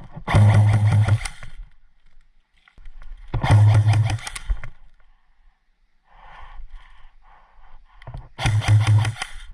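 Electric airsoft rifle firing three full-auto bursts of about a second each, a buzzing rattle of the motor and gearbox cycling, the first near the start, the second about three and a half seconds in, the third near the end.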